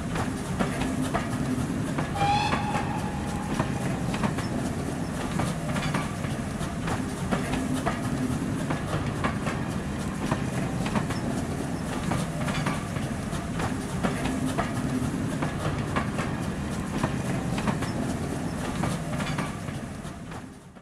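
Passenger train passing close by: a steady rumble of the coaches with repeated clickety-clack of the wheels over rail joints. A brief high note, like a whistle, sounds about two seconds in.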